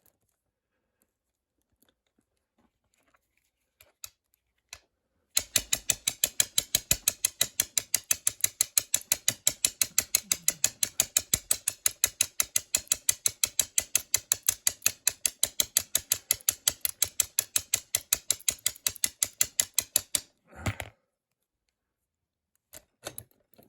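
Bump key in a Master Lock No. 15 padlock being struck over and over with a bump hammer: a fast, even run of sharp metal taps, about six a second, for about fifteen seconds, stopping suddenly. It is the bumping attempt that springs the lock's five pin stacks so the shackle can pop open.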